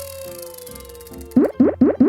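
Cartoon sound effects over light children's background music: a long whistle tone sliding slowly downward and fading, then three quick rising boing-like bloops in a row near the end, the loudest sounds here.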